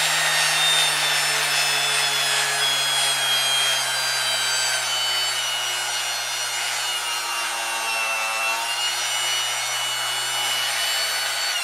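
Festool ETS 150/3 EQ random orbital sander running freely in the hand, a steady motor whine whose pitch sinks slowly. The machine has just been serviced with new bearings and brushes and runs almost like new.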